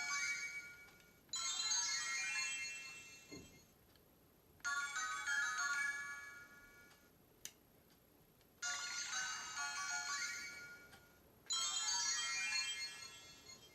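Fairy Ru key magic wand toy playing short electronic chime jingles with sparkling sweeps, four times. Each jingle starts suddenly and fades away over two to three seconds. A single click comes about halfway through.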